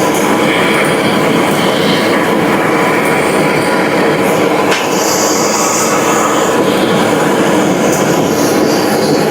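Steady, loud machinery noise with a brief high squeal about five seconds in.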